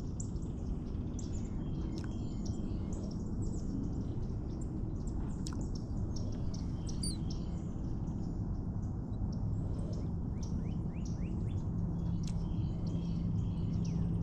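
Several birds chirping and calling in quick, short notes, many sweeping downward, over a steady low background rumble. A low steady hum comes in near the end.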